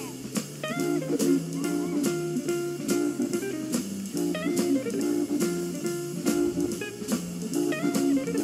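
Background music: a guitar-led tune over a steady drum beat.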